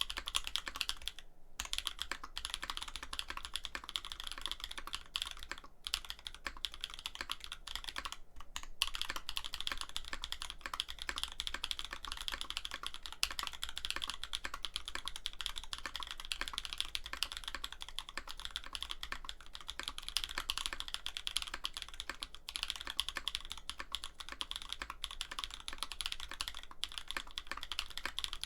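Continuous fast typing on a Bauer 2 mechanical keyboard with an aluminum plate and INVYR Holy Panda tactile switches, a dense run of key clacks broken by brief pauses about a second and a half in and again about eight seconds in.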